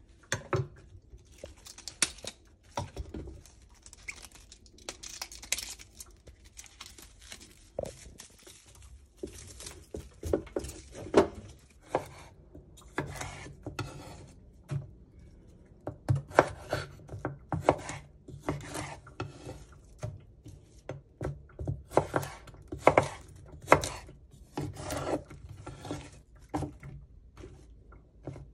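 Chef's knife slicing through green vegetable stalks and striking a wooden cutting board: irregular runs of quick, sharp chops with short pauses between them.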